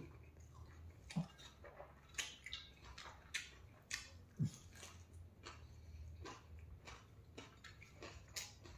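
Faint, irregular wet clicks and smacks of a man's mouth chewing a handful of rice and singju salad.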